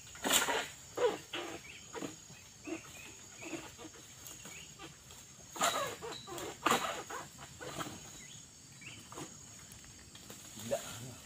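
Palm fronds and undergrowth rustling and crackling in irregular bouts, a few louder snaps and crashes among them, as an oil palm harvester pulls at the fronds with a long-pole sickle (egrek). A faint steady high whine runs underneath.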